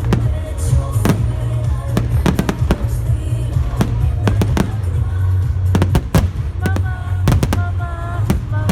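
Fireworks bursting in rapid, irregular bangs over loud music with a heavy, steady bass. Held musical notes come in near the end.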